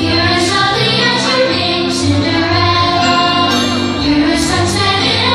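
Fireworks-show soundtrack music with a woman singing, steady and loud.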